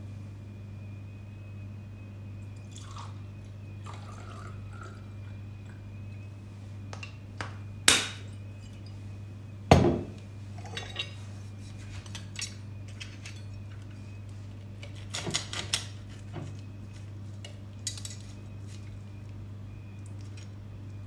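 A glass bottle knocking against a stemmed glass and liquor being poured into it, with two sharp clinks about eight and ten seconds in. Later a knife and fork clink and scrape on a ceramic plate while cutting roast pork. A steady low hum runs underneath.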